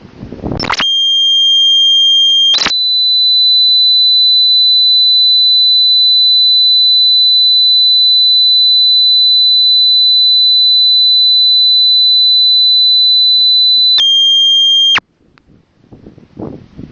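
Loud, steady electronic tone. It starts as a two-note tone for about two seconds, switches to a single higher tone that holds for about eleven seconds, then returns to the two-note tone for about a second before cutting off suddenly.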